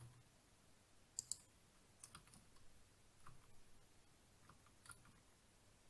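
Near silence with a few faint, scattered clicks from working a computer at a desk; the sharpest two come close together about a second in.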